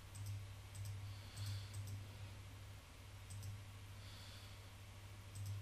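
Faint computer mouse clicks, a few pairs spaced a second or two apart, with soft breaths and a low steady hum underneath.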